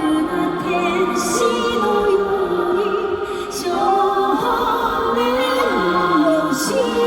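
Live pop concert music: a woman singing a slow, held melody with vibrato over keyboard accompaniment.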